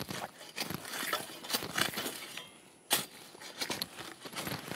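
Steel digging fork worked into hard, drought-dried soil: tines scraping and clinking in the dirt, with a sharp knock about three seconds in.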